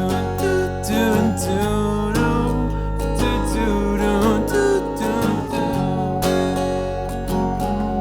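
Instrumental break in a singer-songwriter song: acoustic guitar strummed in a steady rhythm, with a bending melody line above it and a low bass part coming in about two seconds in.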